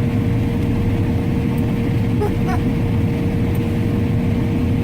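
Harvest machinery heard from inside its cab: a steady low engine drone with a constant whine over it.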